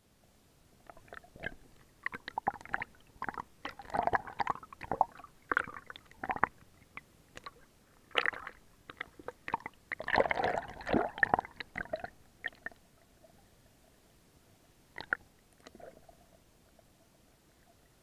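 Sea water sloshing and gurgling around a camera held underwater, picked up from below the surface: irregular crackles and splashy gurgles for about twelve seconds, then quieter with a faint steady hum.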